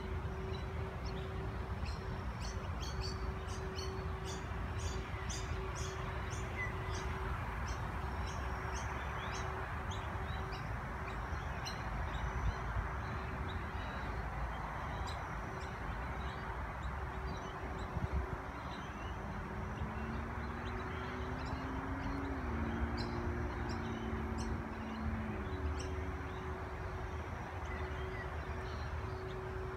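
Small birds chirping in quick runs of short, high notes, busiest in the first third and again near the end, over a steady outdoor background hiss. A steady low hum runs underneath, with a pair of low tones gliding up and down about two thirds of the way in.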